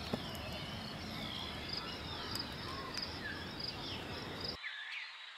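Forest ambience: insects trilling steadily with short chirps repeating at an even pace, and curving whistled bird calls over it. A sharp click just after the start, and the low background rumble cuts out suddenly near the end.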